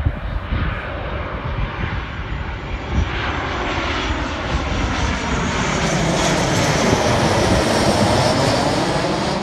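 Boeing 737 airliner on landing approach passing low overhead: its jet engines swell steadily louder and are loudest near the end as it goes directly above, with a sweeping, shifting tone to the noise.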